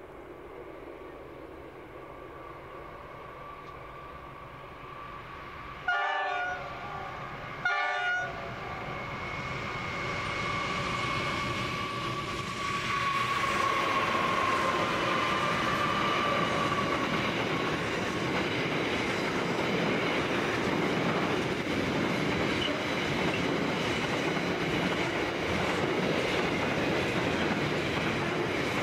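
Approaching freight train of three NR class diesel-electric locomotives, sounding two short horn blasts about six and eight seconds in, the first a little longer. The engines grow louder as they pass, then the loaded steel wagons roll by with a steady clickety-clack of wheels.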